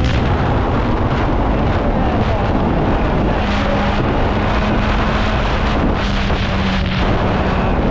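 Honda Hornet motorcycle engine running at a steady pitch while riding, its note easing slightly lower about three and a half seconds in, under heavy wind buffeting on the microphone.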